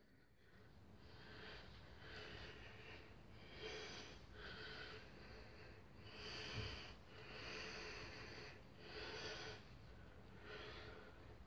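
Faint, rhythmic breathing close to a phone's microphone, about one breath every second and a half.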